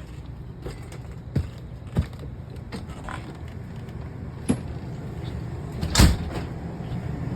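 Footfalls and a few sharp knocks as a person moves through an RV, the loudest a thump about six seconds in, over a steady low hum.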